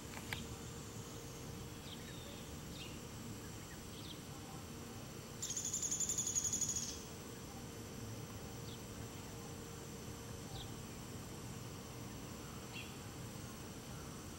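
Young wild turkeys giving short, high, falling peeps every second or few. Near the middle a loud, fast-pulsing high insect buzz lasts about a second and a half.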